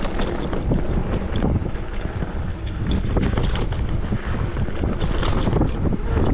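Mountain bike descending a rough bike-park trail, with heavy wind buffeting the microphone over the rumble of the tyres and frequent knocks and rattles from the bike.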